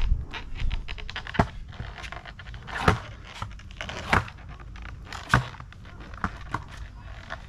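Skateboard with a 9-inch deck and soft 56 mm wheels being ridden and knocked about: a low rolling rumble at first, then a run of sharp clacks and knocks, the loudest about every second and a half, with lighter ticks between.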